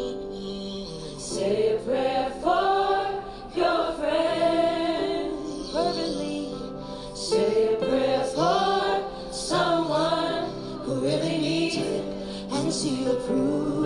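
Gospel song: sung vocals with choir-like backing voices over steady held accompaniment.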